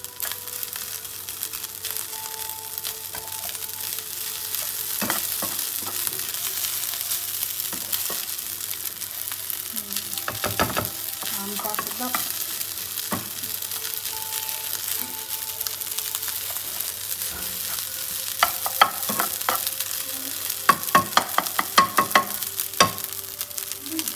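Fried rice sizzling steadily in a hot pan while a spatula stirs and scrapes through it. In the last few seconds there is a quick run of spatula knocks against the pan.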